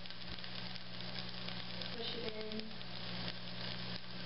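Chicken and vegetable stir-fry sizzling steadily in a pan, with faint scattered ticks and pops.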